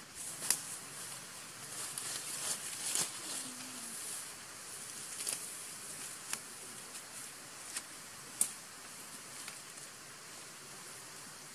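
Leaves and stems rustling with scattered sharp crackles and snaps as macaques move through dense undergrowth, the sharpest snaps about half a second in and again later on.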